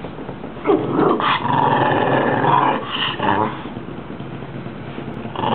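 Rat terrier growling, a resource-guarding growl over a chicken bone: loud and harsh for the first half, easing to a low rumble, then louder again near the end.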